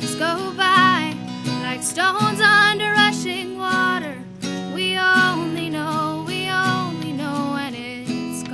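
A woman singing with strummed acoustic guitar accompaniment; her held notes waver with vibrato.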